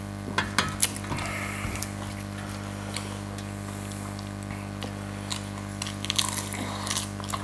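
Panipuri being eaten by hand off steel plates: crisp puris crunching, with scattered sharp clicks and a busier run of them about six seconds in, over a steady low hum.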